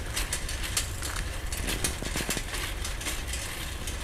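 A city bicycle rolling along a paved path, with irregular light rattling and clicking and a few knocks about two seconds in, over a low uneven rumble.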